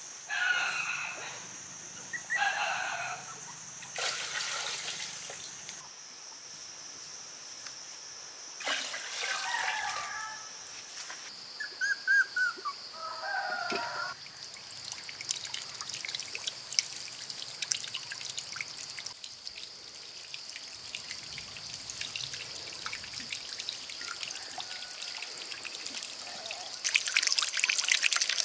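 Water trickling and being poured, over a steady high-pitched whine, with short chirping calls several times in the first half. The water gets louder near the end.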